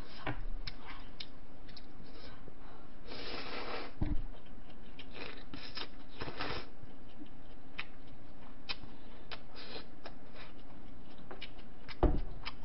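Eating sounds: noodles slurped from a bowl held up to the mouth, in two noisy stretches, with small clicks of chopsticks and chewing. A dull knock about four seconds in and another near the end, the last as the bowl is set back down on the table.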